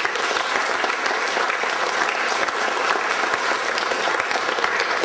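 Theatre audience applauding, a dense, steady clapping that holds level throughout.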